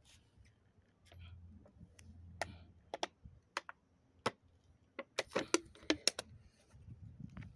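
Irregular sharp clicks and taps, a few spaced out at first, then a quick cluster of about eight about five to six seconds in.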